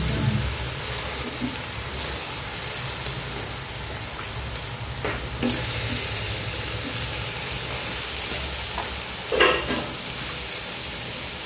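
Steady sizzling from a pot on a gas stove as wet jackfruit pieces are dropped into it by hand. A few soft knocks come from the pieces and pot, the loudest about nine and a half seconds in.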